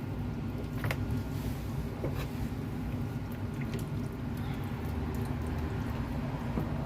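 A pot of banga soup simmering on the stove, bubbling steadily under a low hum, with two light clicks about one and two seconds in.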